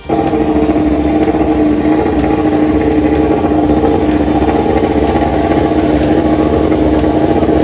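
MotoGP racing motorcycle engine running at a steady, loud fast idle on a paddock stand while it is warmed up in the pit garage. It starts abruptly and holds an even pitch without revving.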